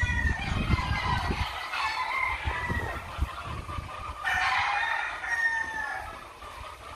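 Roosters crowing, with a long drawn-out crow starting about four seconds in, and a low rumble during the first second and a half.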